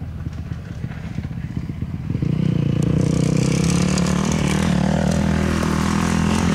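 Dirt bike engine running, getting much louder about two seconds in and then holding a fairly steady pitch.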